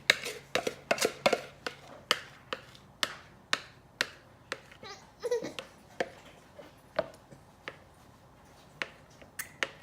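A utensil clicking and tapping against a bowl and mug, sharp irregular knocks about one or two a second, as cupcake batter and cinnamon sugar are spooned into the mug in layers.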